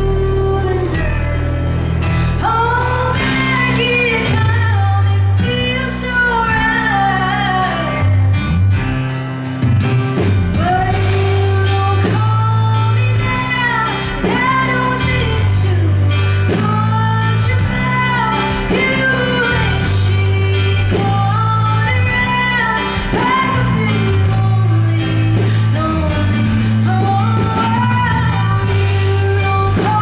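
A woman singing a song live over a strummed acoustic guitar, with held low bass notes changing every second or two underneath.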